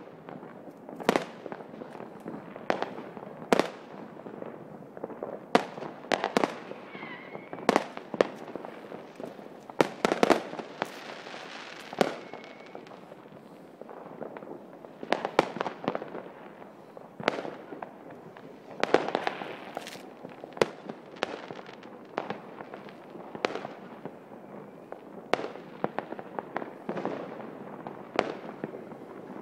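New Year's fireworks and firecrackers going off: sharp bangs at irregular intervals, sometimes several a second, over a steady background of fainter bangs and crackle.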